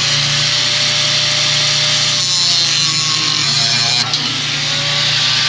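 A power tool cutting through a broken steel bolt, running steadily at full speed with a motor hum and faint whine, with a brief dip about four seconds in.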